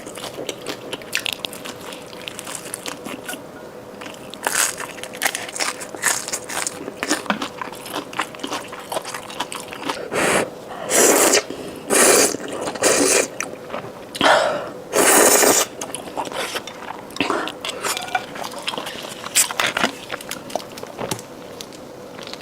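Close-miked eating of crispy deep-fried food: repeated crunching bites and chewing. Several louder, longer noisy bursts come in the middle.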